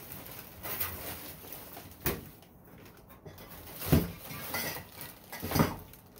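Thin metal advertising signs being handled and shifted around in a box: a few sharp knocks and clatters, the loudest about four and five and a half seconds in.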